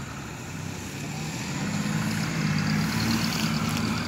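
Farm tractor's diesel engine running steadily as it drives, growing louder as it comes closer.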